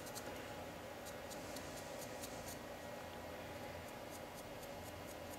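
Marker pen tip scratching and dabbing over the end of a two-flute end mill, a faint run of light, irregular ticks over a low steady background. The marker is inking ('bluing up') the area behind the cutting edge before the relief is ground.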